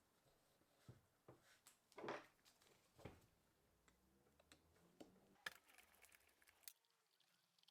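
Faint, scattered clicks and light knocks, a few to a second, against a quiet background that drops out to near silence near the end.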